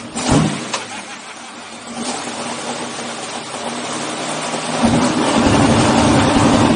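Pulling truck's engine heard from inside the cab: a sharp loud blip about a third of a second in, then running more quietly, then revved up about five seconds in and held high.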